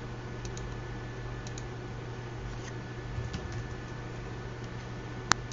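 A few sparse, faint computer keyboard keystrokes over a steady low hum, with one sharp, louder key click near the end.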